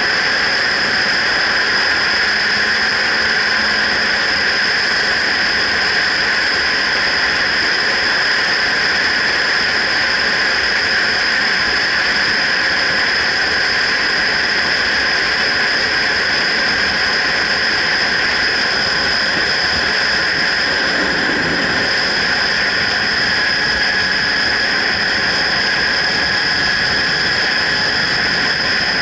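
Wind rushing over a helmet-mounted action camera's microphone on a motorcycle at steady road speed: a loud, even rush in which no engine note stands out. A brief low swell comes about two-thirds of the way through.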